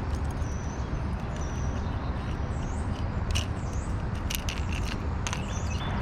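Outdoor background of a steady low rumble with small birds chirping several times, short rising and falling calls, and a few sharp clicks.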